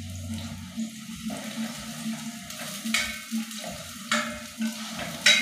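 Sliced red onions sizzling in oil in a stainless steel pot, with a spatula stirring and knocking against the metal side of the pot three times, about three, four and five seconds in.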